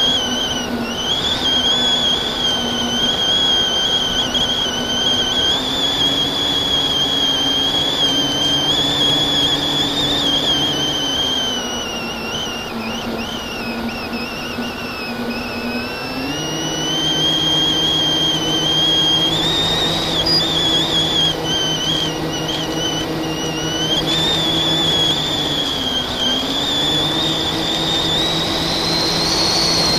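FPV quadcopter motors and propellers whining continuously, the pitch wavering and shifting up and down with throttle, with a rise near the end.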